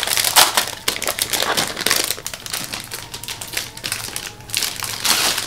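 Packaging crinkling and rustling in repeated bursts as a journal is unwrapped and handled.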